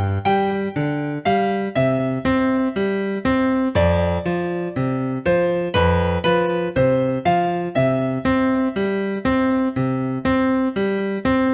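Piano playing a simple, evenly paced melody over bass notes, about two struck notes a second, each ringing and fading before the next.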